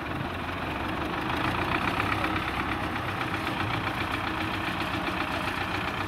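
Tractor engine running steadily as the tractor drives slowly along, tipping a load of sand from its raised dump body onto a dirt road.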